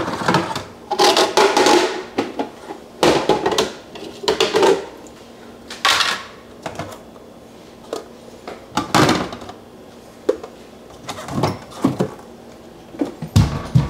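Plastic food-storage containers and bins clattering and knocking as they are taken down from a cupboard shelf, in several short clusters of clacks with pauses between.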